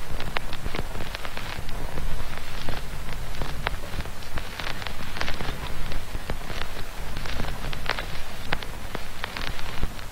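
Generated ambient noise from a Raspberry Pi noise toy: a steady rain-like crackle with many sharp clicks scattered through it, over a low rumble.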